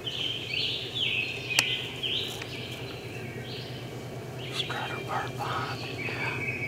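Spring woodland ambience: small songbirds chirping in quick repeated phrases, with a single sharp click about a second and a half in and a short run of lower notes a little before five seconds.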